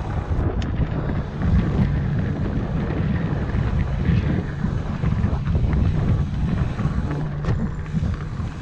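Wind buffeting an action camera's microphone over the steady rumble of a mountain bike rolling fast on dirt singletrack, with a few sharp clicks and rattles from the bike.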